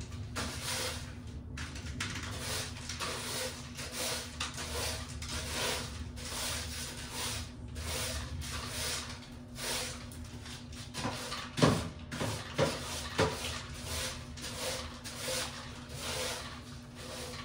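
Household handling sounds: a run of short rubbing or brushing strokes, with a few sharp knocks in the middle.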